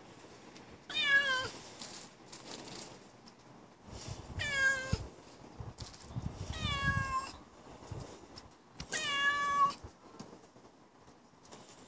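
Domestic cat meowing four times, a few seconds apart, each a drawn-out call that bends in pitch. It is crying to be let in at a closed door.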